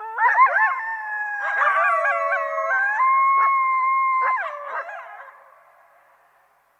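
A group of coyotes howling and yipping together, several voices overlapping in wavering, sliding calls, one howl held level for about a second and a half before the chorus trails off.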